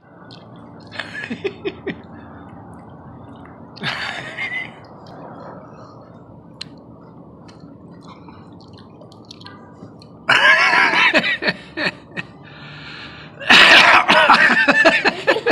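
Non-speech vocal sounds: a few short coughs, sniffs or throat noises early on, then two loud vocal outbursts of a few seconds each, about ten and thirteen and a half seconds in, with a brief hiss between them.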